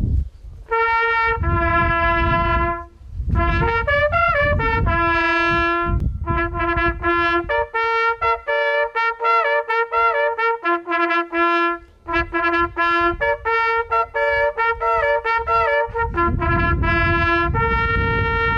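Hunting horn sounding a ceremonial call as the hunt opens: a fanfare of short repeated notes and held notes, all drawn from a few natural notes of the horn, ending on a long held note. A low rumble runs underneath.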